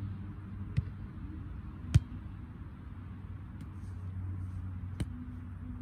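A volleyball being struck three times during a rally: sharp slaps about a second in, at about two seconds (the loudest) and at about five seconds, over a steady low hum.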